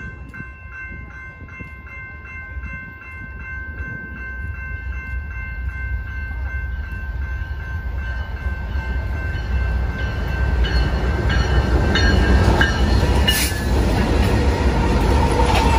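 A BNSF intermodal freight train's diesel locomotives approach and pass. Their rumble builds from faint to loud as the lead engines come alongside near the end, with a few sharp clanks. Early on, a bell-like ringing pulses about three times a second until the train's noise covers it.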